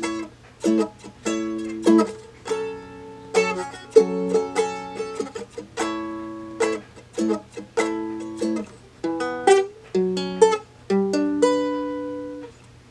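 A Seagull Merlin, a four-string dulcimer-like instrument, played in strummed chords. It is a run of sharp strums, one to three a second, each chord ringing on briefly before the next.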